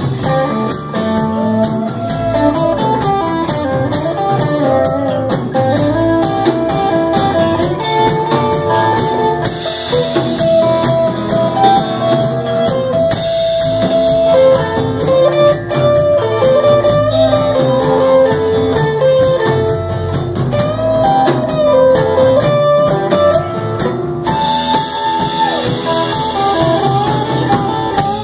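Live blues band playing an instrumental break: an electric guitar takes a solo of single, bent notes over electric bass and a drum kit.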